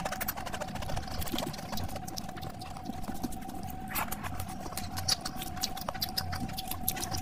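Close-miked wet chewing and lip smacking, a dense run of small sticky clicks, as rice mixed with fish curry is handled and eaten by hand. A faint steady tone sits underneath.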